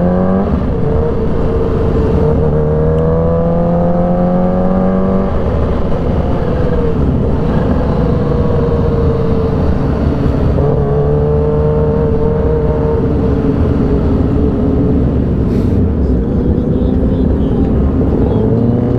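Kawasaki Ninja H2's supercharged inline-four engine running at a steady cruise with wind rush, its note slowly rising and falling and dropping about five seconds in.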